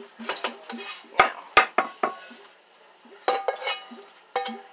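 Plates and kitchen utensils being handled, a series of sharp clinks and clatters with a short ring, the loudest two coming about a second and a half in. A low pulsing sound, about six beats a second, runs underneath for the first second.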